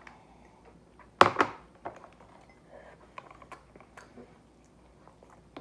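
Close-up chewing of soft chocolate-chip bread, with small wet mouth clicks and one louder, sharper sound a little over a second in.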